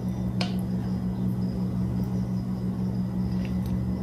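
Steady low hum, with one light knock about half a second in as a wooden spatula works a Salisbury steak out of gravy in a slow cooker crock.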